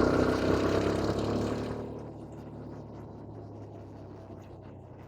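Quad-bike (ATV) engine running: a loud engine note for about the first two seconds that fades away, leaving a steady low engine drone.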